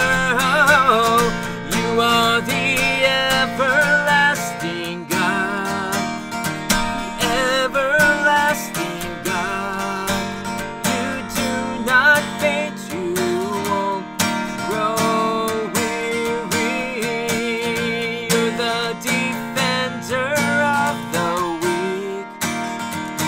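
Acoustic guitar strummed steadily, with a voice singing long wavering wordless notes over it.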